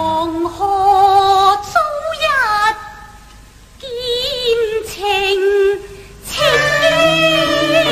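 Cantonese opera singing: a woman's voice in the dan role sings a drawn-out line with wide vibrato and sliding pitch, and the instrumental ensemble takes over again about six seconds in.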